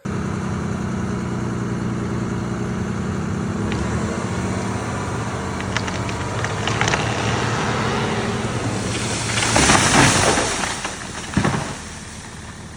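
An engine running steadily while wood gives sharp cracks, then a tree coming down: a rushing crash through the branches and a heavy thud as it lands near the end.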